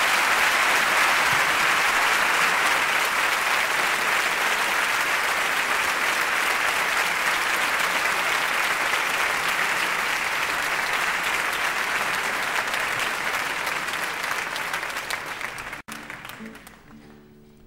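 Concert audience applauding steadily after a song ends. The applause fades over the last few seconds and cuts off sharply.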